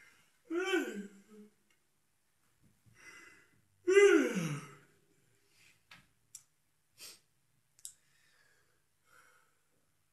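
A man's voice making two drawn-out, wordless sounds that slide down in pitch, about half a second in and again about four seconds in, the second louder; a few short soft clicks follow.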